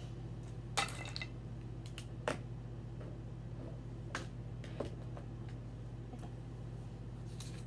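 A handful of light, scattered clicks and taps from small objects being handled, the sharpest about a second and two and a half seconds in, over a steady low hum.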